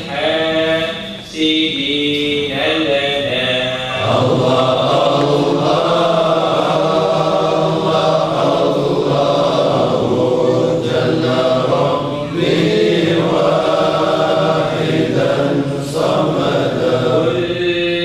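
A group of men chanting devotional dhikr together in unison, with long held, melodic notes. The chant grows fuller and louder about four seconds in, as more voices join.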